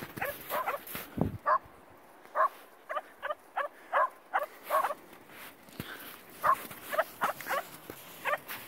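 Shetland sheepdog (Sheltie) puppies yipping: many short, high-pitched yips in a quick, irregular series, with a short pause about halfway through.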